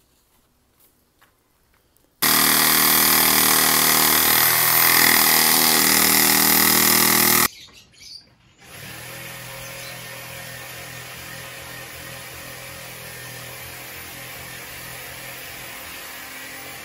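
Handheld power saw running for about five seconds as it cuts into an old orange-tree stump, its pitch wavering under the load. It is followed by a quieter, steady hiss.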